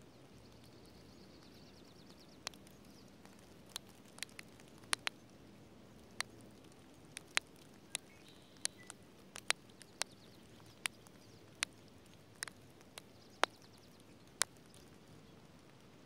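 Raindrops falling onto dry leaves and plant litter close by, as single sharp taps at irregular intervals, roughly one a second, over a faint steady rain hiss. A faint high bird trill lasts about two seconds near the start.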